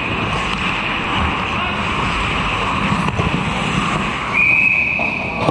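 Hockey skates scraping across the ice amid rink noise and players' voices, then a single steady referee's whistle blast a little over four seconds in, held about a second.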